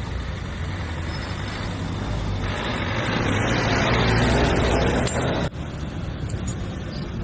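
A motor vehicle running close by, growing louder over a few seconds, then cut off abruptly about five and a half seconds in, with a steady low traffic hum underneath.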